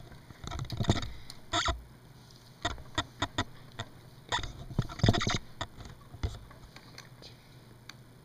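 Irregular clicks and knocks of plastic Lego parts as a Lego pendulum clock's gears and counterweight are handled; no steady tick-tock.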